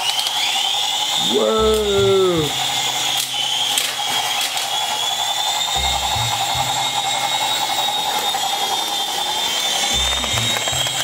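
Little Tikes My First Flyer toy helicopters' small electric motors and rotors whirring with a steady high-pitched whine, having just spun up to flying speed.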